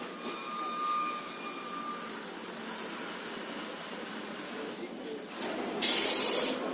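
CNC paper tube making machine running with a steady mechanical noise and a faint whine in the first couple of seconds, then a loud hiss lasting about a second near the end.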